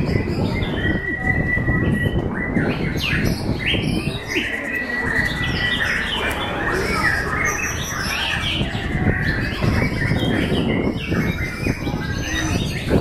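Caged white-rumped shamas (murai batu) singing against one another at a songbird contest: a dense jumble of overlapping whistles, chirps and trills, with a few held whistled notes, over a steady low background rumble.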